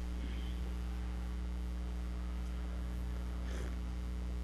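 Steady electrical mains hum on the microphone audio, with a faint short sip from a steel mug near the end.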